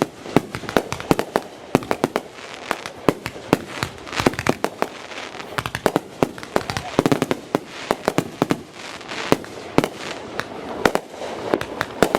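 Consumer fireworks going off in a rapid barrage: sharp bangs and reports, several a second, one close behind another.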